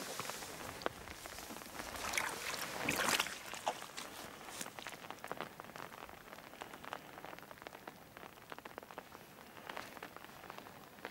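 Rain falling steadily, a haze of patter with many light, irregular ticks of drops, and a louder rustle of noise about two to three seconds in.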